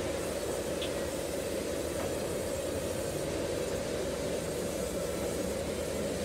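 Band sawmill running steadily as its blade saws lengthwise through a log, a constant even machine noise.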